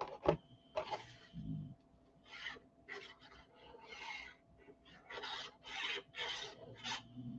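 Tip of a squeezed liquid glue bottle dragged across cardstock while drawing glue lines: a faint series of short, irregular scratchy rubs, with the cardstock shifting in the hand.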